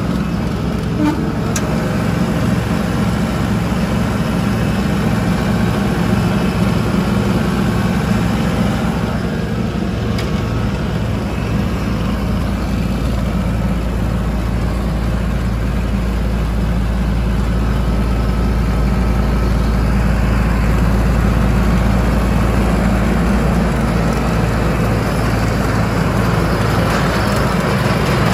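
Demag DF 65C tracked asphalt paver's diesel engine idling, a steady low-pitched hum.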